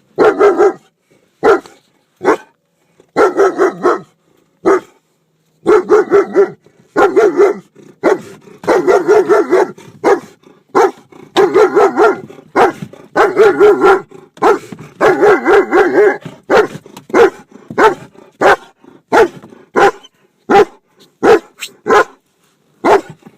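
German Shepherd Dog barking hard while guarding a car, in dense runs of rapid barks for the first two-thirds. After that the barks come singly, about two a second.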